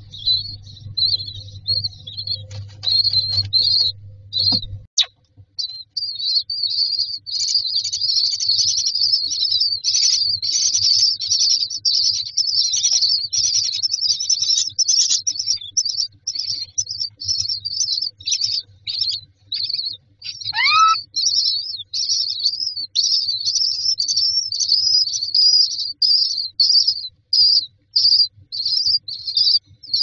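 Common myna nestlings begging for food with rapid, high-pitched chirping that goes on almost without pause. About two-thirds of the way through, a single call slides sharply downward in pitch.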